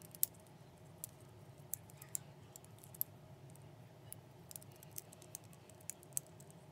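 Clear plastic 3D crystal puzzle pieces clicking and tapping against each other as they are handled and tried for fit: a dozen or so sharp, irregular clicks over a faint, steady low hum.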